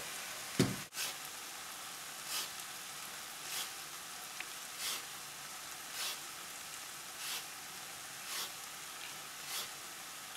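Lemon peel rubbed over a small hand grater, a short rasping stroke about once a second. Beneath it is the faint, steady sizzle of the ground beef and vegetable mixture cooking on in the pan's residual heat, with a single knock about half a second in.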